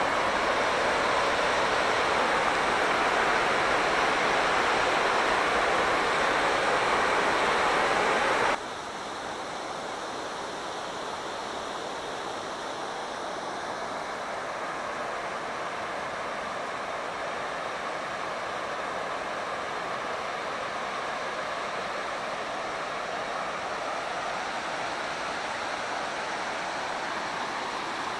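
Water rushing steadily over a low river weir. About eight and a half seconds in, the level drops suddenly and the rush goes on quieter and steady.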